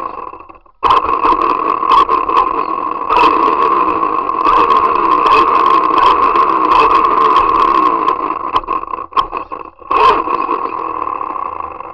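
Radio-controlled car's motor and drivetrain running with a steady high whine, with scattered clicks and rattles as it drives. It cuts out briefly about half a second in and starts again. After about eight seconds it stutters on and off, then dies away near the end.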